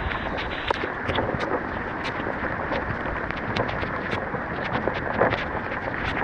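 Steady rushing wind noise on the microphone, with many irregular sharp ticks and taps scattered through it.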